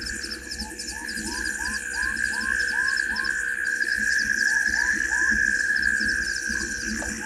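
Night chorus of calling frogs and insects: a steady high-pitched trill, with a short rising-and-falling call repeated about three times a second in runs, broken by a brief pause near the middle, and faint rapid chirping above.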